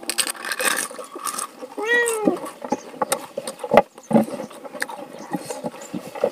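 A cat meows once, about two seconds in, a single call that rises slightly and then falls away. Around it come scattered light clicks and taps from eating by hand off a steel plate.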